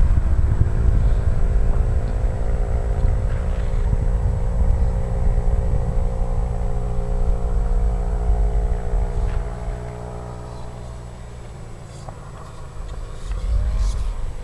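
A radio-controlled model plane's motor and propeller drone steadily in flight, over heavy wind buffeting the microphone. Both fade about ten seconds in as the plane comes down to land.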